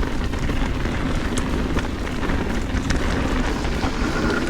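Mountain bike riding down a dirt trail: steady wind noise on the camera microphone and tyre rumble, with scattered clicks and rattles from the bike over rough ground.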